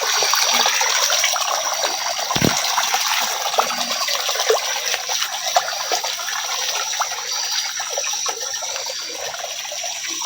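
Running, splashing water: a steady rushing hiss full of small crackles, with a thin steady high whine over it.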